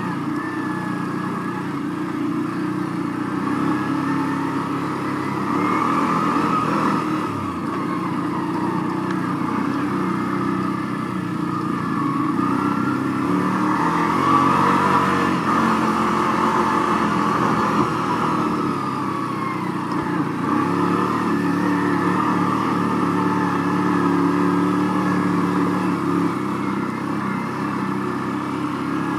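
Small off-road vehicle engine running under load while climbing a rough dirt track, the revs rising and easing off a few times with the throttle.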